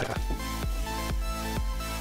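Electronic background music with a steady beat and a constant bass line.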